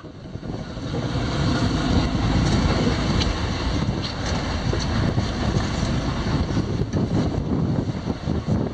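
Fishing boat's engine running under wind buffeting the microphone: a steady low noise that rises and falls, with a few faint knocks.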